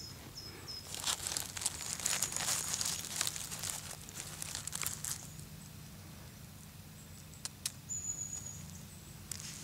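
Dry leaf litter and pine needles crackling and rustling under a hand as black porcini are uncovered and picked from the forest floor, busiest in the first half, then dying down to a few faint snaps.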